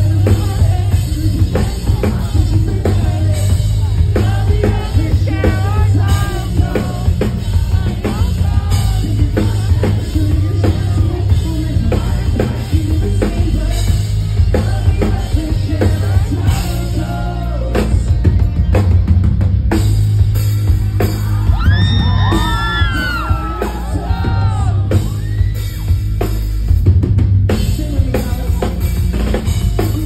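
Pop-punk rock band playing live at full volume: drum kit, bass and guitars under a singer's vocals.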